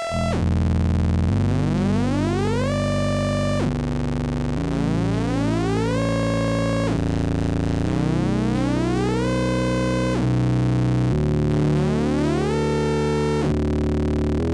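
Buchla modular synthesizer playing a soft-synced oscillator pair: a tone rich in overtones glides upward, holds and cuts off, about five times over, above a sustained low note that changes pitch in steps. The soft sync reverses the modulation oscillator's waveform at each reset of the principal oscillator, folding the wave.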